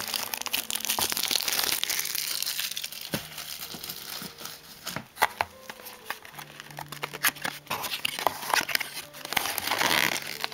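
Plastic wrapping on a pack of card sleeves being crinkled and torn open by hand. It crinkles densely at first, then comes in scattered sharp crackles and clicks, and crinkles densely again near the end.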